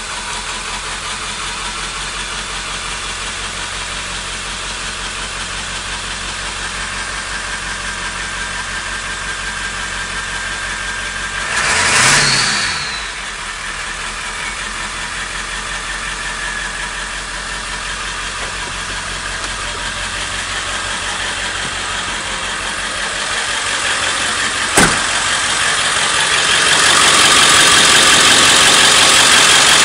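Ford 7.3 Powerstroke turbo-diesel V8 idling with a rapid ticking, blipped once about twelve seconds in with a quick rise and fall in pitch. A single sharp click comes near the end, then the engine runs louder for the last few seconds.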